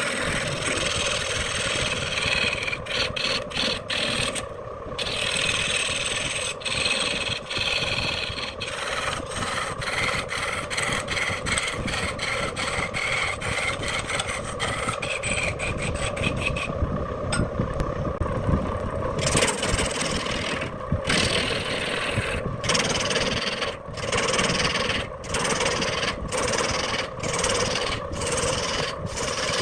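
Wood lathe running with a steady hum while a hand-held turning tool cuts into a spinning wood blank, making a rasping scrape as shavings come off. The cutting keeps breaking off and starting again, roughly once a second in the later part, as the tool is pressed in and lifted while shaping grooves.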